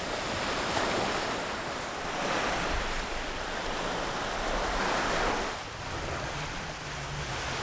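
Surf washing up onto a sandy beach, the sound of the waves swelling and easing several times and dropping away a little after five seconds.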